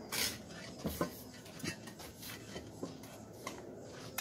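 Mason's trowel scraping mortar and lightly tapping hollow ceramic bricks as they are laid: a short scrape at the start, then a few light clicks and knocks.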